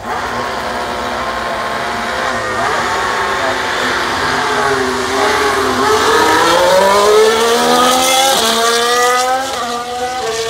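Formula 1 cars' turbocharged V6 engines passing at speed on a wet straight. One car's note dips, then climbs through upshifts as it accelerates past, over the hiss of tyre spray.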